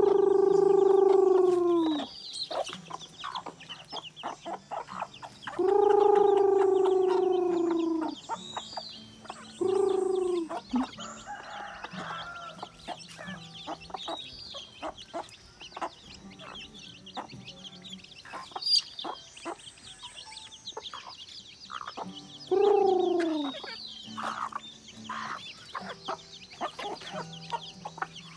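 Native chickens feeding: a rooster crows four times, loud, long calls that drop in pitch at the end, the third one short. Between the crows there is constant high cheeping of chicks and soft clucking of hens.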